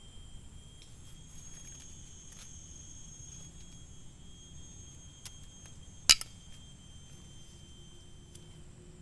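Forest insects, such as cicadas or crickets, keep up a steady chorus of high, thin tones. About six seconds in there is one sharp knock, doubled, much louder than the chorus, with a few fainter ticks around it.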